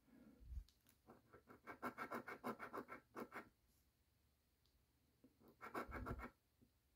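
A quarter scraping the latex coating off a scratch-off lottery ticket in quick back-and-forth strokes. There is a run of about two and a half seconds, then a shorter burst of scratching near the end.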